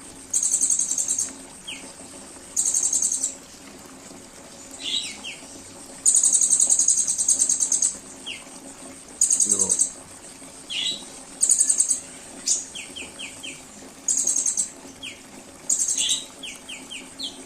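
Recorded songbird song played as a song-tutor track: repeated very high, rapid buzzy trills, each lasting half a second to two seconds, with short quick falling chip notes between them. A faint steady low hum runs underneath.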